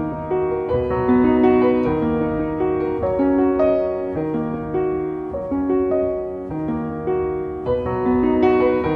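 Background piano music: a calm melody of single notes changing about every half second over held low bass notes.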